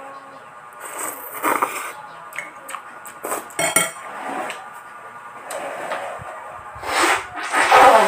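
Utensils clinking and scraping on a ceramic bowl, with eating noises, in several short bursts, the loudest near the end, over quiet background music.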